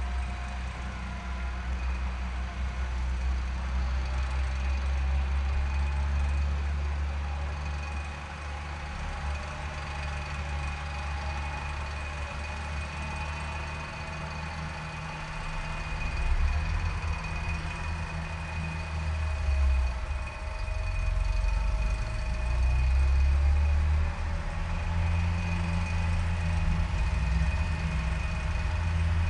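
Off-road 4x4 engine running under varying throttle, a deep rumble with revs rising and falling, loudest about two-thirds of the way in. A steady high whine sits over it throughout.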